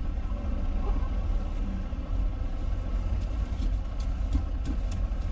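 Semi truck's diesel engine running steadily at low revs while the rig is backed and straightened, a low rumble heard from inside the cab.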